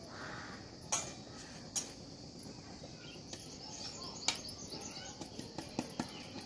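A metal flour sieve being tapped and shaken over a steel plate while sifting gram flour, giving a few sharp clicks and knocks, over a steady high chirring of insects with a few bird chirps.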